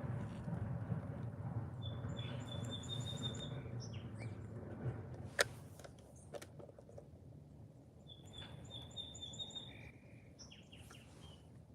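A small songbird singing a short, fast, even trill twice, several seconds apart, over a steady low background rumble. A single sharp click about five seconds in.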